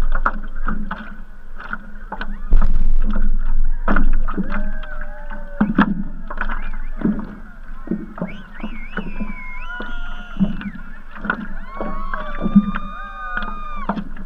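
Water lapping and slapping against a stand-up paddleboard, heard through the board-mounted camera as irregular knocks and splashes. From about four seconds in, wavering, gliding tones come and go over it.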